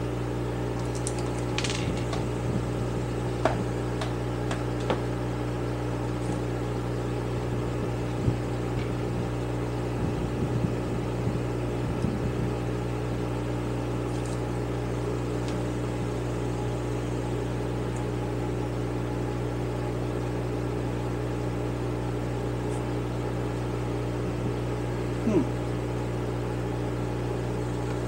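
Steady electric hum with a low drone. Scattered light clicks and taps of small metal carburettor parts are handled and fitted, the loudest about 25 seconds in.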